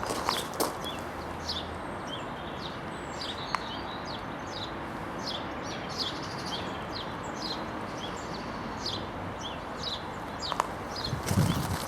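Small birds chirping: a steady run of short, quick chirps over constant background noise, with a low thump near the end.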